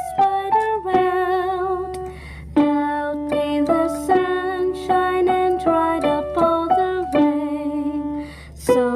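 Background music: a cheerful melody of short, distinct notes.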